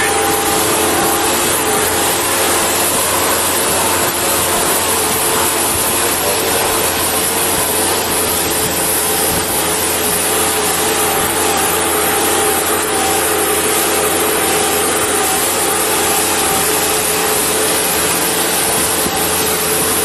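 Bobcat 773 skid-steer loader's diesel engine running steadily at close range, a loud, even drone with a few held tones.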